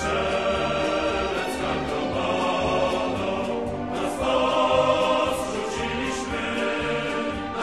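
Choral music with orchestral backing: sustained sung chords over a pulsing low beat.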